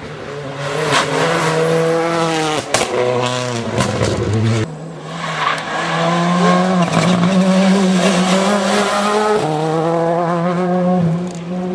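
Rally car engines at full throttle on a tarmac stage, the note climbing through each gear and dropping sharply on shifts and lift-offs. There are a few sharp cracks in the first three seconds.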